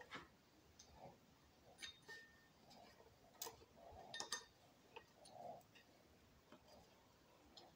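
Faint, scattered clicks and light taps from a ribbed drive belt being handled and threaded around the engine's pulleys, with a small cluster of taps a little past the middle.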